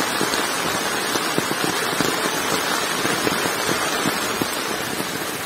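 Heavy rain falling steadily, a dense crackle of many drops hitting a surface.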